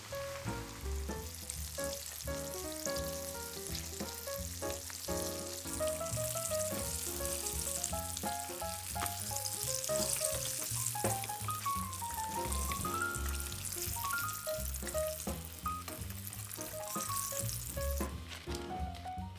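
Flour-coated chicken wings deep-frying in hot oil: a dense sizzle full of fine crackles, which builds about a second or two in and drops away near the end. A light melody of background music plays underneath.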